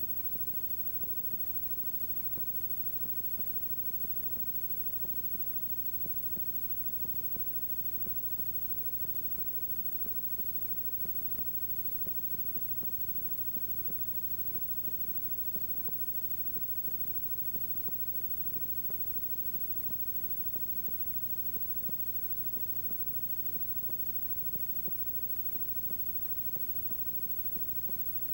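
Steady electrical hum with a stack of buzzing overtones over hiss, with faint ticks at a regular pace: the noise floor of an old videotape's soundtrack.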